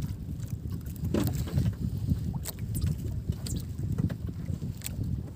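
Outrigger fishing boat under way on open sea: a steady low rumble of wind and water past the hull, with a few light knocks.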